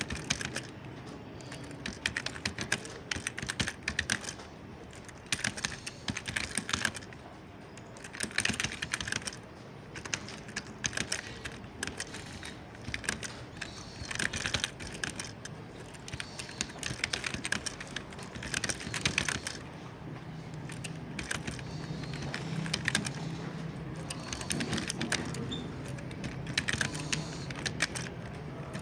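Computer keyboard being typed on in bursts of rapid key clicks, each a second or two long, separated by short pauses, over a faint low hum.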